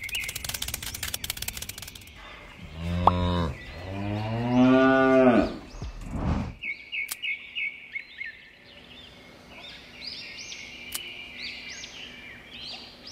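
Cow mooing: a short call, then a long, loud moo that rises and falls in pitch, and a brief last grunt. It opens with a rapid rattle of clicks and is followed by birds chirping.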